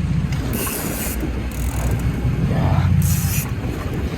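Low rumble of a fishing boat running at sea, with wind buffeting the microphone and several short bursts of hiss.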